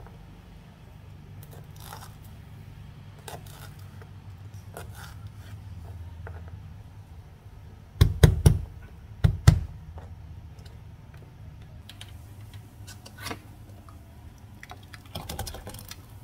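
A kitchen knife cutting lemongrass on a plastic cutting board: scattered light taps, then a quick run of loud knocks about eight seconds in and a second, shorter run a second later.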